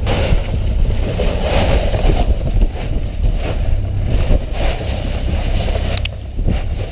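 Fishing boat's engine running in a steady low rumble, with wind buffeting the microphone. A single short click about six seconds in.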